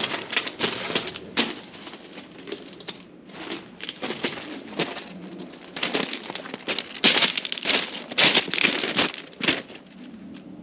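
Footsteps on dry grass and leaves, an irregular run of crackling steps, loudest and densest in the later half.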